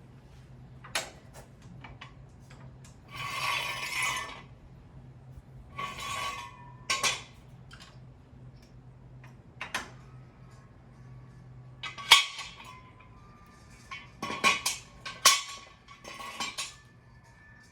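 Scattered metal clinks and knocks from a floor jack being worked to lower a car, with a couple of longer rattling scrapes, over a low steady hum that stops about twelve seconds in.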